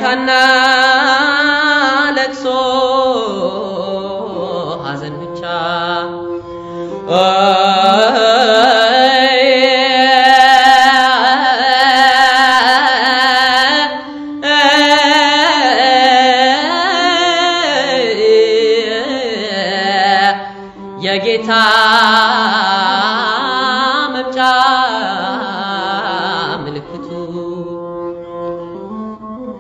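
A sung hymn: a voice in long, wavering melodic lines over a steady low held note, breaking off briefly twice.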